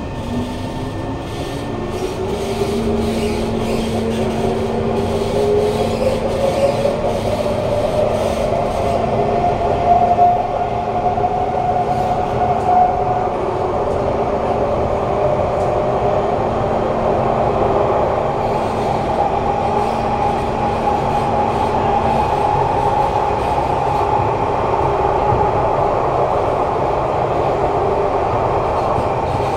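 Kawasaki Heavy Industries C151 metro train's GTO-VVVF traction motors whining as the train accelerates, with several tones gliding upward over the first dozen seconds. A steady low hum drops out about two-thirds of the way through, leaving an even running whine over rail noise.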